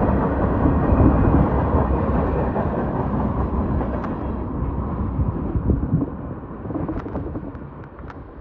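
Union Pacific freight train rolling past, a heavy low rumble that fades away over the last couple of seconds, with a few sharp clicks near the end.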